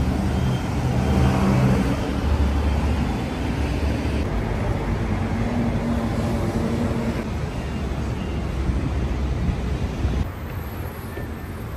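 Outdoor street ambience: a steady low rumble of road traffic.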